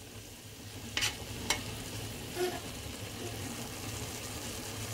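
Beef mince sizzling as it fries with spices in a steel pot, in the water the meat has let out, while a spoon stirs it. The spoon knocks sharply against the pot twice, about a second in.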